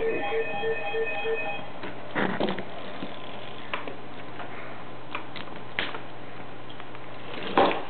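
A quick run of about five electronic beeps at the start. Then the scattered knocks and clatter of a Lego car being handled and set down on a tabletop close to the microphone, with a louder clatter near the end.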